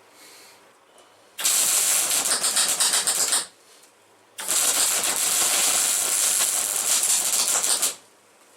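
Electric arc welder crackling and sizzling in two runs, one of about two seconds and then a longer one of about three and a half seconds, as seams are welded on rusty scrap sheet steel.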